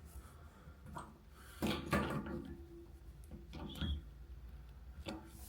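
A spanner tightening a rusted nut on a leaking pipe fitting: a few short metal clicks and scrapes.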